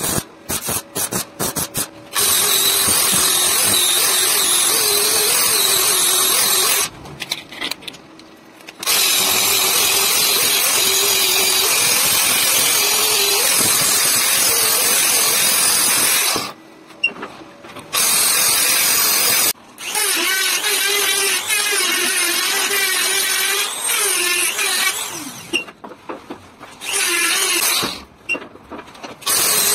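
A wire-feed welder crackling in short stop-start bursts, then an angle grinder grinding the steel hammer head in long runs with a wavering motor whine, stopping and starting several times.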